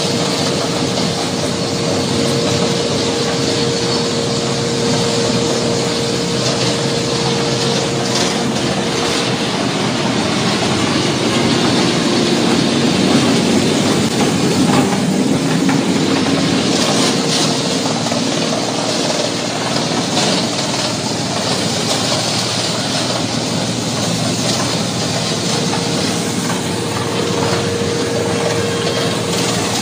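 Tree-branch shredder machine running, a steady mechanical drone with a hum through it at the start and again near the end.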